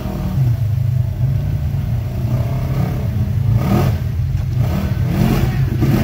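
Side-by-side UTV engine revving up and down in bursts under load as it drives through the creek and climbs a rock ledge, with water splashing from the tyres.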